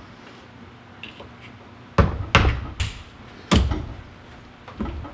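Four sharp metal knocks in quick succession about two seconds in, then a lighter one near the end: a power steering rack and its tie rod knocking against a bench vise as they are handled.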